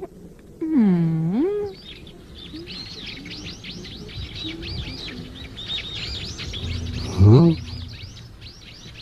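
Many small birds chirping rapidly and continuously, a dense birdsong that sets in about two seconds in. It is preceded by a brief loud swooping voice sound, and a short rising vocal sound cuts in near the end.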